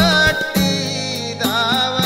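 A man singing a Kannada song with instrumental accompaniment, his voice wavering and gliding between held notes over sustained backing tones and regular drum strokes.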